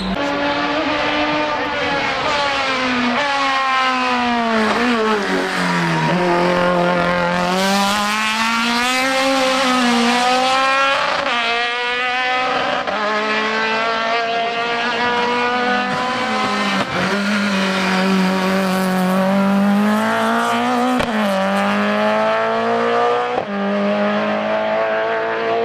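Hill-climb race car engine at full throttle up a mountain course. Its note rises and falls again and again as the driver shifts gears, brakes into the hairpins and accelerates out.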